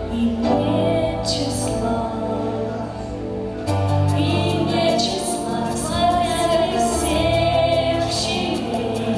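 Female voices singing a slow melody with long held notes over an instrumental backing track with a changing bass line.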